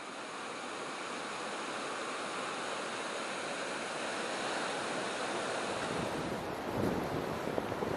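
Ocean surf breaking on a beach: a steady wash of noise that fades up at the start, with wind on the microphone adding a low rumble near the end.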